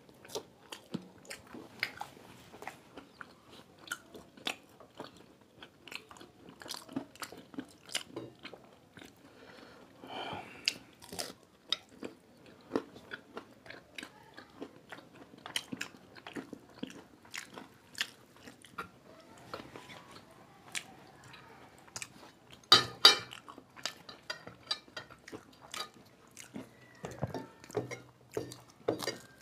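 Close-up eating sounds of two people biting, crunching and chewing deep-fried samosas: a steady run of small crisp crunches and mouth sounds, with a louder burst about three-quarters of the way through.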